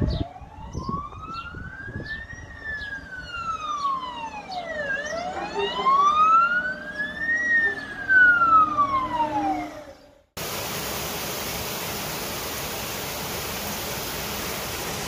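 A fire engine's siren wailing, its pitch slowly rising and falling in cycles of about five seconds, louder in the middle. It cuts off abruptly about ten seconds in and is replaced by the steady hiss of torrential rain.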